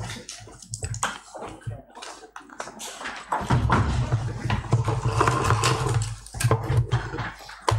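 Papers and folders rustling, with knocks and clatter on the conference desks as people gather their documents and get up. A low rumble comes in about three and a half seconds in.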